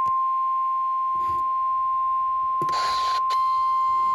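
A weather alert radio's steady single-pitch warning alarm tone, at about 1050 Hz, sounding continuously as the attention signal that comes before a broadcast warning. A brief burst of hiss comes about two and a half seconds in.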